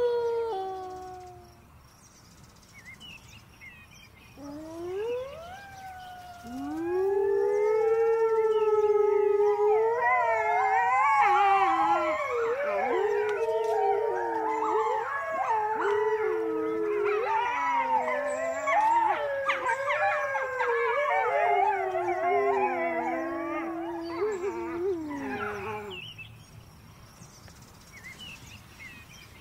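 A pack of grey wolves howling. A single falling howl fades out at the start, and after a short lull one howl and then another rise in. They swell into a chorus of many overlapping, wavering howls that stops a few seconds before the end.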